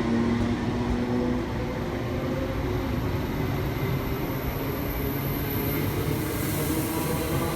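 Electric train running through the station: a steady low rumble with a faint motor hum, one hum tone stopping about a second and a half in and new tones coming in near the end.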